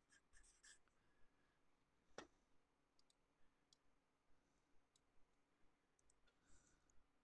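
Near silence, with faint squeaky strokes of a felt-tip marker on paper at the start and again near the end, and a single sharp click about two seconds in.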